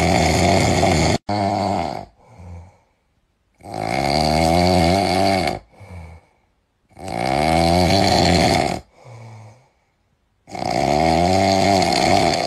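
Loud, rhythmic snoring: four long snores about three and a half seconds apart, each followed by a shorter, softer breath.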